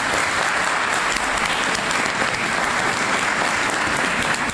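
Congregation applauding steadily.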